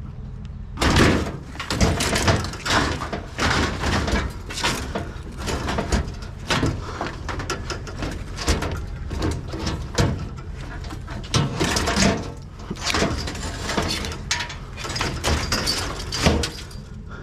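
Irregular clanks, knocks and clatters, one or two a second, of scrap being handled and loaded into a trailer, over a steady low rumble.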